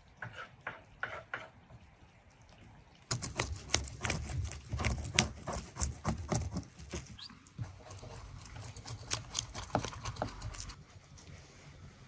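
A knife scraping the scales off a small fish on a wooden cutting board: a quick run of rasping, clicking strokes that starts abruptly about three seconds in and stops suddenly near the end. A few faint ticks come before it.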